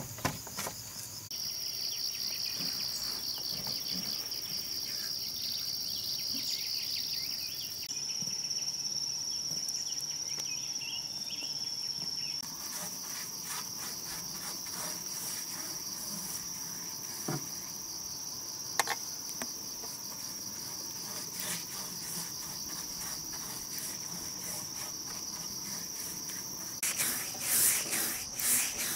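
Steady, high-pitched chorus of insects droning. Near the end, a paintbrush swishes in repeated strokes across wooden boards.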